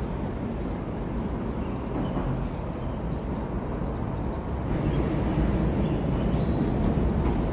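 Low, steady rumble of traffic crossing the bridge overhead, swelling louder about five seconds in as a vehicle passes.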